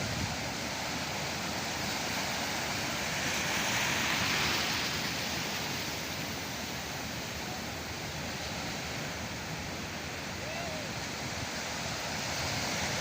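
Sea waves breaking and washing ashore: a continuous rushing surf that swells about four seconds in and again near the end.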